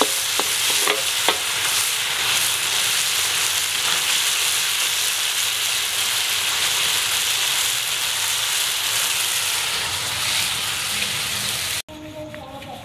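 Pork ribs, pineapple and peppers sizzling as they are stir-fried in a wok, with a few sharp knocks of the wooden spatula against the pan in the first second or so. The sizzle cuts off suddenly near the end.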